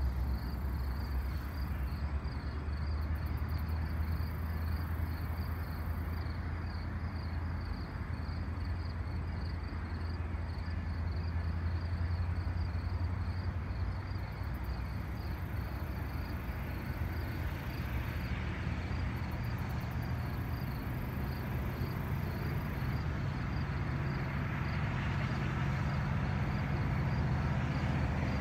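Insects chirping in an even, fast-pulsing high trill over a low, steady rumble from far off, the rumble growing a little near the end as the train draws closer.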